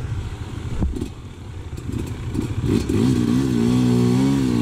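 Enduro motorcycle engine revving: a few short throttle blips, then revs held high and wavering from about three seconds in.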